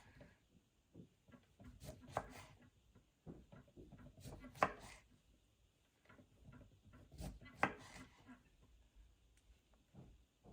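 Kitchen knife slicing lemons into rounds: irregular sharp knocks as the blade goes through and taps the cutting board, with soft rubbing and handling of the fruit between strokes.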